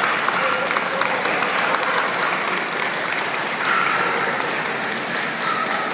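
Audience applauding steadily, a dense run of overlapping claps.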